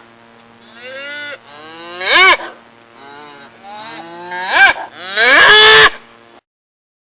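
Cattle mooing: a series of moos, each rising and falling in pitch, the last one the longest and loudest. The mooing cuts off about six seconds in.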